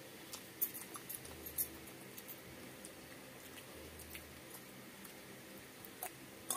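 Faint sounds of eating rice by hand from a banana leaf: scattered small smacks and clicks of fingers squishing rice and of chewing, the sharpest about half a second in, just after a second and a half, and near the end.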